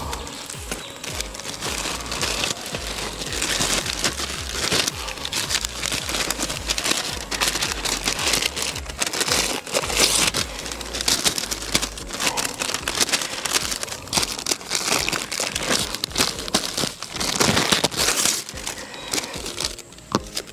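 Soil crunching and scraping as the ground around a buried wild dog trap is worked and firmed up, so the trap sits solid: a continuous, irregular crackling.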